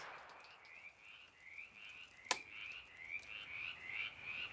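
One sharp click about halfway through, fitting a 9mm pistol's trigger resetting as it is slowly let out after a shot. Under it runs a faint steady chirping, about three short rising chirps a second, growing louder toward the end.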